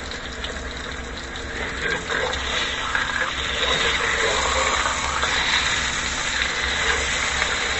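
Rib-eye steak sizzling in a hot skillet just after being turned over, the sizzle growing louder about two seconds in.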